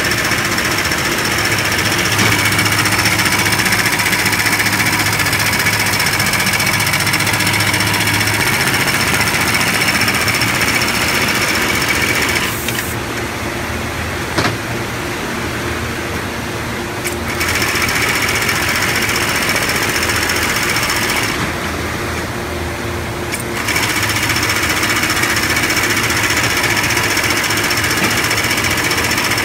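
Keestar LoopSEW65 automatic FIBC loop-attaching sewing machine running at speed, its needle clattering rapidly as it stitches a lifting loop onto woven bag fabric. It goes quieter twice for a few seconds while the loop is repositioned, then picks up again.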